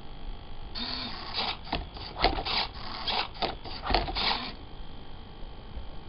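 Hobby servo motors of a Lego-built Rubik's cube solver arm whirring as the robot flips the cube over to present the next face, with clicks and plastic clatter throughout; it runs for about four seconds and stops suddenly.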